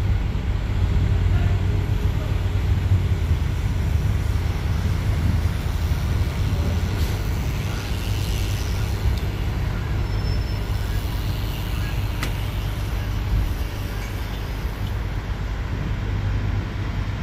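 Steady low rumble of city road traffic, with no pitched sound standing out and a single sharp click about twelve seconds in.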